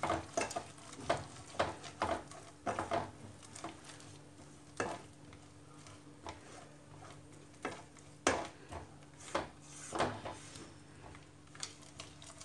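Silicone spatula stirring and scraping a thick tomato-and-cream masala around a nonstick kadai in irregular strokes, with a low sizzle of the paste cooking in ghee and a faint steady hum underneath.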